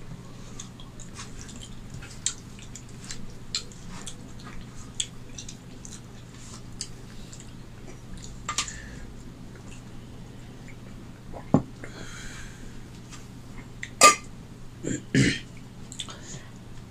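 Fingers wiping leftover gravy off a stainless-steel plate, with wet eating sounds of chewing and mouth smacks. It comes as scattered small clicks, and the loudest smacks fall about two thirds of the way in and near the end.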